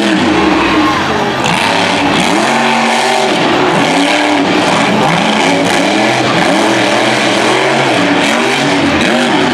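Monster truck engine revving hard, its pitch swooping up and down again and again as the truck is driven and jumped on a dirt track.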